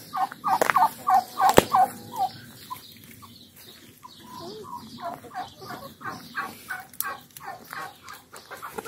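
Domestic poultry calling, with rapid runs of short repeated notes, about five a second. One run stops a couple of seconds in, and another starts about halfway through and goes on to near the end.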